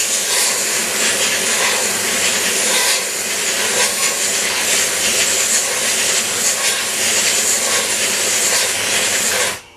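Can of compressed-air keyboard duster held upside down, spraying its liquid propellant in one long, loud, steady hiss onto a ball bearing to flash-freeze it; the spray cuts off suddenly near the end.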